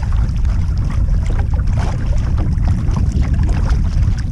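Wind buffeting the microphone on a kayak out on open water: a loud, steady low rumble, with scattered small clicks and ticks over it.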